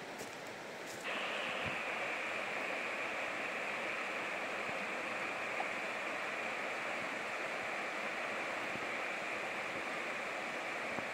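River water flowing steadily, a constant rushing hiss that gets abruptly louder about a second in.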